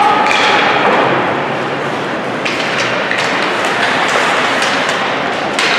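Ice hockey game sounds in an echoing arena: a steady din of skates and voices, with several sharp clacks of sticks and puck.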